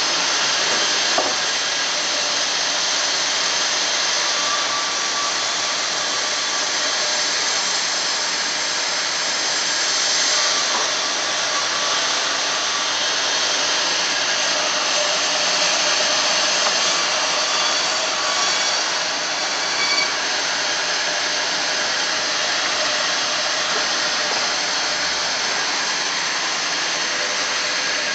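Sawmill bandsaw running with a loud, steady noise, with a couple of brief knocks.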